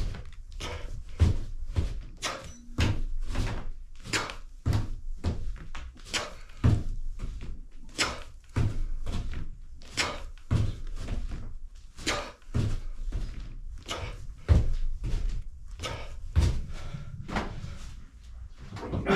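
Irregular knocks and thumps, about two or three a second, of a person doing resistance-band push-ups with mountain-climber knee drives: hands and feet landing on the floor.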